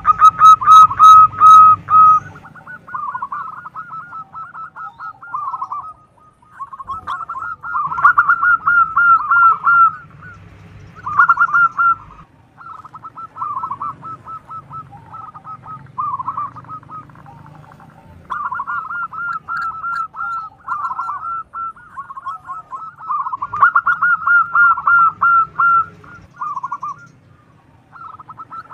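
Zebra dove (perkutut) cooing: phrases of quick, rippling coo notes, each a second or two long, repeated again and again with short pauses. The loudest phrase comes right at the start.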